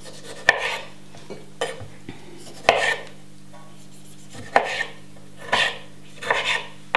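Kitchen knife cutting cherry tomatoes on a bamboo cutting board: about seven short, sharp knocks of the blade against the wood, spaced irregularly about a second apart, over a faint steady hum.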